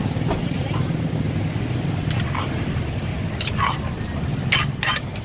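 Steady low rumble of street traffic, with a few sharp clinks in the second half from a spoon knocking and scraping in a clay mortar of papaya salad.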